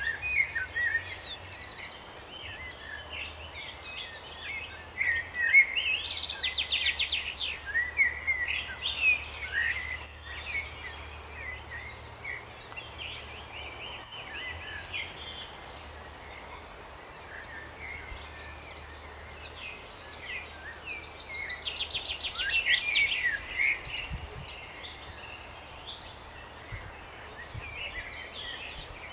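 Several small songbirds singing and calling, with two spells of fast trilled song, about a fifth of the way in and again about three quarters of the way through, over a faint steady low hum.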